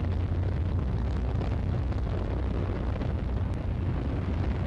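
Steady deep rumble with a hiss, the running rocket engine of the Soyuz-2.1b's second stage, carried on the launch broadcast during powered flight.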